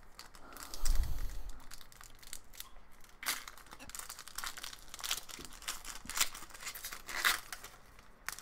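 A thump about a second in, then the foil wrapper of a 2019/20 Upper Deck SP Authentic hockey card pack crinkling and tearing open in a run of sharp rustles.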